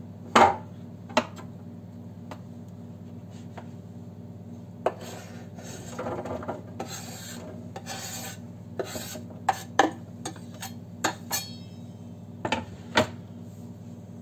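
Kitchen knife scraping diced carrot across a wooden cutting board in several rasping strokes, mostly in the middle, with sharp knocks of the knife and board scattered through.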